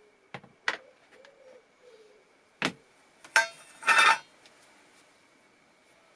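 Workshop handling sounds on a workbench: a few sharp knocks in the first three seconds, then a ringing metallic clink about three and a half seconds in, followed by a short rattle.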